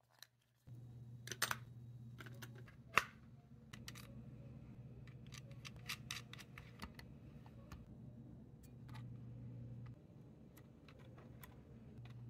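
Small clicks and taps of a quartz clock movement's parts being fitted to a wooden clock face: the brass nut and washer on the shaft and the metal clock hands set on with tweezers. Two sharper clicks come in the first three seconds, then a run of lighter ticks, over a steady low hum.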